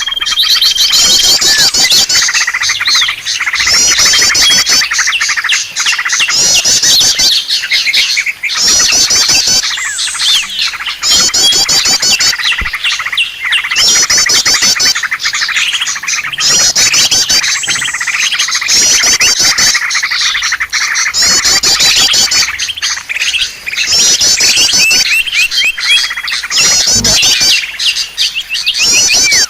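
Dense chorus of many small birds chirping and twittering nonstop, with rapid runs of short high chirps that repeat every second or two, used as a lure call for wild birds.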